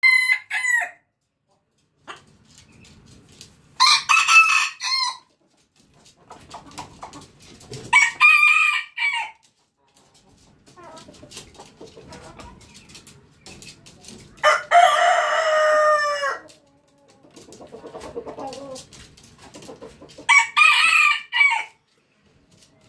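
Red junglefowl rooster crowing again and again: short, high crows every few seconds, with one longer, lower-pitched crow in the middle. Quieter low sounds fill the gaps between crows.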